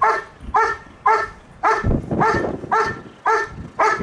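A dog barking steadily and rhythmically, about eight short barks at roughly two a second.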